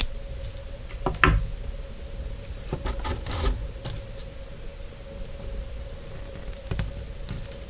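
Fishing line being snipped with pliers right at the start, then scattered small clicks and knocks as the line and a plastic method feeder are handled on a tabletop. A faint steady hum runs underneath.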